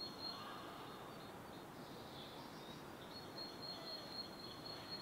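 Faint outdoor ambience: a steady low hiss with a thin, high steady tone that drops out just after the start and comes back about three seconds in.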